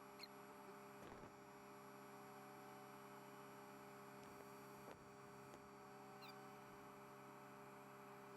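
Near silence: a faint steady electrical hum, with two tiny brief chirps.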